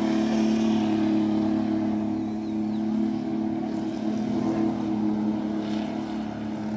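Nissan S13 Silvia's swapped-in RD28 turbo-diesel straight-six held at high, steady revs during a burnout.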